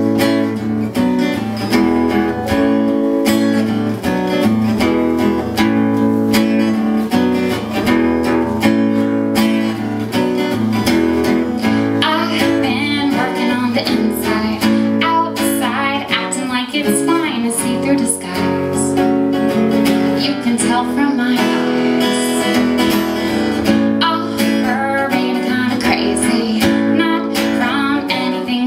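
Acoustic guitar strummed in steady, continuous chords: the opening of a solo song.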